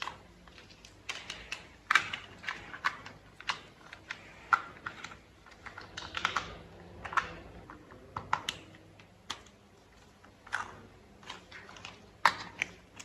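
Hard plastic toy parts clicking and knocking as they are handled and fitted together: a string of irregular sharp clicks with short pauses between them.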